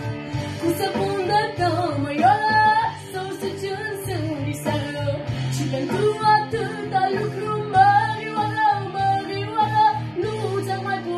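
A girl singing a melody into a microphone over an instrumental backing track with a steady beat.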